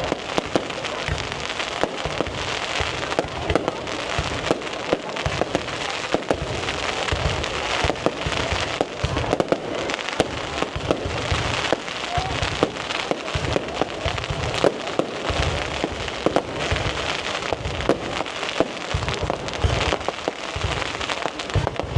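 Fireworks display: a continuous barrage of rapid sharp bangs and crackles over repeated low booms.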